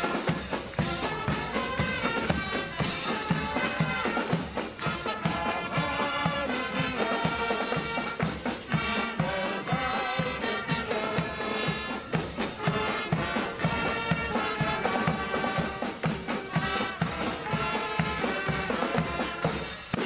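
Marching brass band playing live: trumpets and other brass carrying the tune over a steady, regular drum beat.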